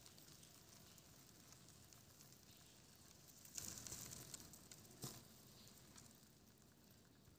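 Faint scratchy rustling and crackling of crickets crawling over leaves and the plastic sides of a tub, swelling for about a second midway, followed by one sharp click.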